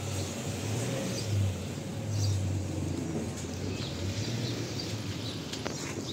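Street traffic noise: a motor vehicle's engine running with a steady low hum that swells and eases, under general street noise and a few faint bird chirps.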